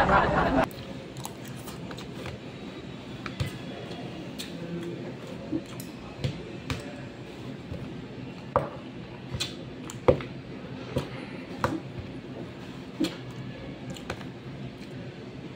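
Metal spoon clicking and scraping against a plastic food container while scooping rice, with light eating sounds: a string of short, sharp clicks about a second apart. A louder sound cuts off abruptly less than a second in.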